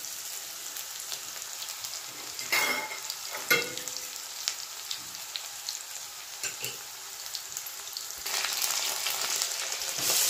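Chopped onion, dry red chillies and a mustard-seed and urad dal tempering sizzling in hot oil in a kadai, with a metal spatula knocking and scraping the pan a couple of times. The sizzle grows louder about eight seconds in.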